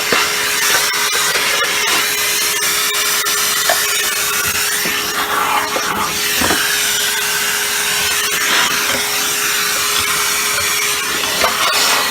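Vacuum cleaner running steadily through a dusting brush attachment, with a constant tone and irregular scrubbing and rubbing as the brush is worked over a dirty part to suck out the dirt.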